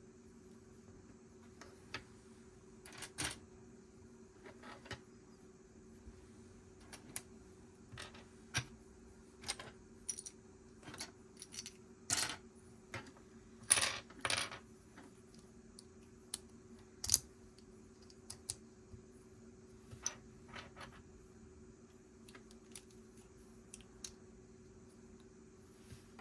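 Small plastic Lego pieces clicking and clattering as they are picked up, handled and pressed together: irregular sharp clicks throughout, with the loudest clatters about halfway through. A faint steady hum runs underneath.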